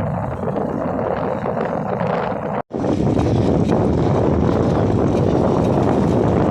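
Loud, steady rushing wind noise on the microphone during a bike ride, cutting out for an instant about two and a half seconds in.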